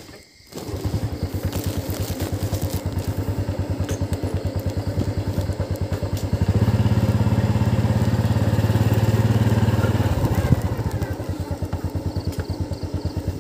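Small motorcycle engine running at low speed, its firing pulses evenly spaced. It picks up about six seconds in and eases back about ten seconds in, with one sharp knock just after.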